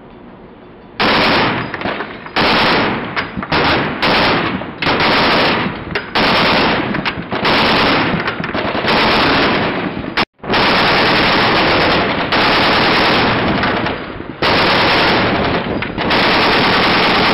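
.50 calibre M2 Browning heavy machine gun firing a long series of short bursts, beginning about a second in.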